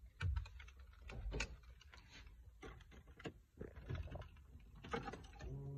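Keys jangling, with scattered clicks and knocks from handling them in the cabin of a Toyota AE86 as the key is brought to the ignition. A low steady hum starts near the end.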